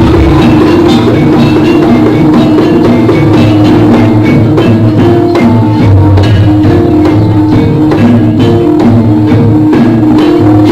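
Live jaranan music: a gamelan-style ensemble of tuned gongs and metallophones plays short repeated notes over a held low note and steady drum strokes.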